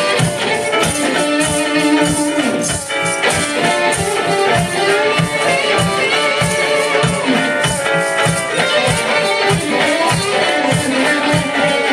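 Live rock band playing a song, with a steady drum beat and guitar.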